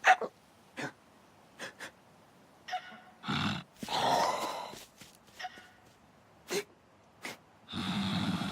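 Cartoon sound effects and wordless character sounds: a string of short, sharp noises and gasps, the loudest right at the start and a longer one about four seconds in, then a steady background from about eight seconds in.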